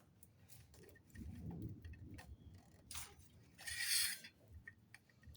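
Small clicks and handling noises of sewing machine parts around the bobbin area being fitted back into place, with a short scraping rustle about four seconds in.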